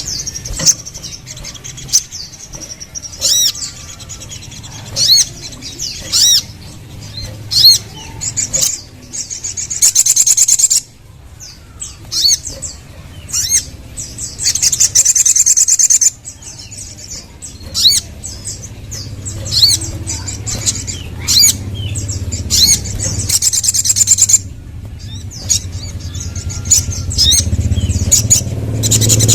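Crimson sunbird (sogon) singing: high, thin chirps and short sharp notes broken by fast trilled runs, over a steady low hum.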